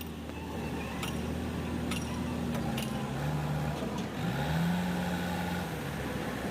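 JCB 3DX backhoe loader's diesel engine running as it works, its pitch dipping and then climbing again about two-thirds of the way through. A few faint knocks come in the first half.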